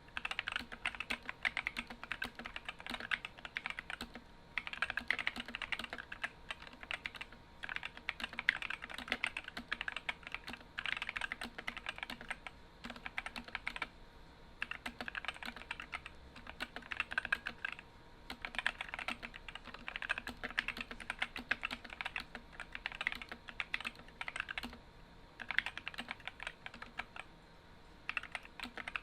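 Typing on an Epomaker SK64 mechanical keyboard with stock, unlubed Gateron optical red linear switches and ABS keycaps: rapid key clacks in bursts of a few seconds with short pauses between them.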